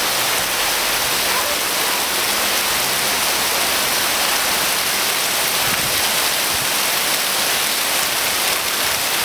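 Heavy downpour of rain, a steady, even hiss of rain falling on the garden, paving and pool.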